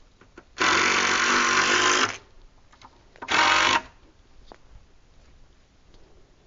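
Handheld power drill running in two bursts, first for about a second and a half, then again briefly about a second later.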